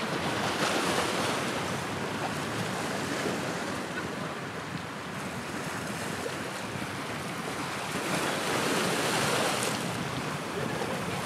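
Wind rushing over the microphone along with the wash of choppy sea water: a steady noise that swells slightly about eight seconds in.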